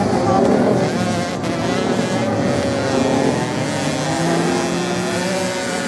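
Several off-road motorcycles racing on a beach sand track, their engines overlapping and shifting in pitch as the riders rev and pass.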